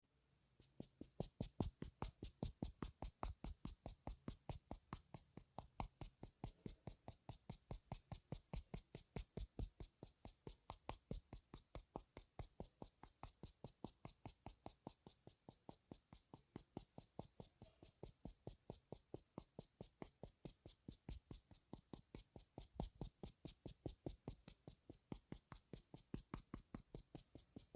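Soft, even tapping, about four taps a second, as makeup is patted onto the face.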